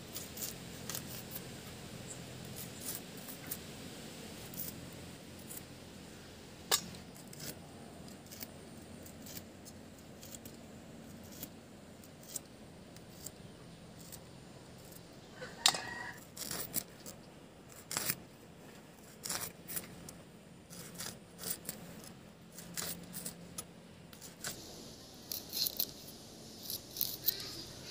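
Bitter gourds (karela) being scraped and sliced on a bonti blade: scattered crisp cuts and clicks, growing more frequent about halfway through as the slicing gets going.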